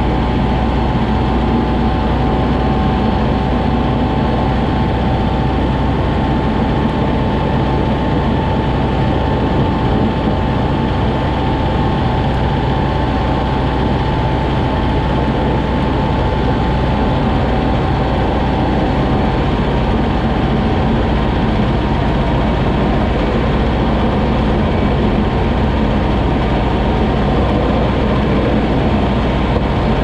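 Kubota M6060 tractor's diesel engine running steadily under load as it pushes snow with its front blade, with a steady whine above the engine sound.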